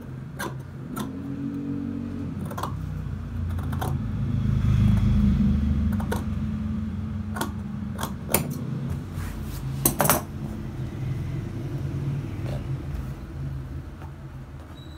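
Large tailor's shears cutting cloth: scattered sharp clicks of the blades closing, the two loudest around eight and ten seconds in. Under them a low steady rumble swells to its loudest about five seconds in and then eases off.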